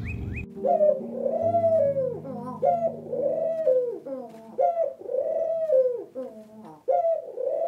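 Pigeons cooing: a run of repeated coos, each rising and then falling in pitch, one after another with short gaps.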